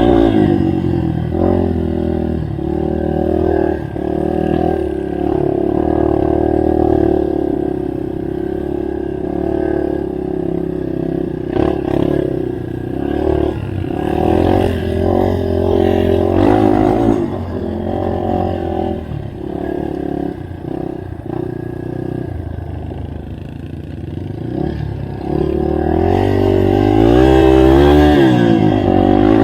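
Yamaha TT-R230 trail bike's single-cylinder four-stroke engine running while being ridden, its pitch rising and falling with the throttle, revving up strongly near the end. Occasional clatter and knocks come from the bike over rough ground.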